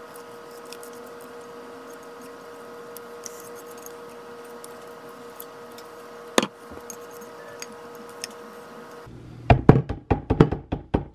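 A silicone spatula tapped repeatedly against a metal loaf pan to knock off brownie batter: a quick run of sharp knocks, about five a second, starting near the end. Before that, a steady low hum with one sharp click.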